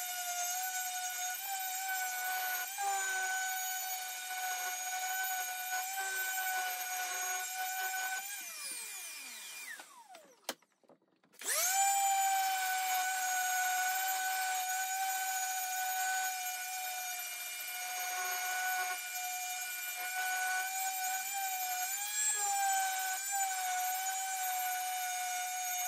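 Random orbital sander running with a steady tone while sanding the willow blade of a cricket bat. About eight seconds in it is switched off and winds down with a falling pitch, then after about a second of quiet it starts up again and runs on steadily.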